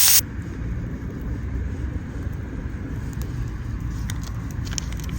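Loud frying sizzle cuts off abruptly just after the start. It leaves a steady low rumble with a few faint crackles, more of them in the second half.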